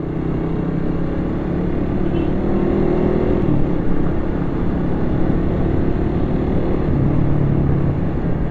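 Steady riding noise from a motorcycle in city traffic, picked up by a camera-mounted mini shotgun mic: wind rush over a low engine hum, with the helmet's air vents open.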